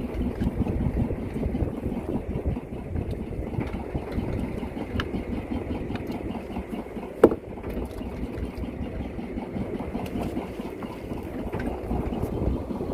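Fishing boat's engine idling steadily, with one sharp knock a little past halfway.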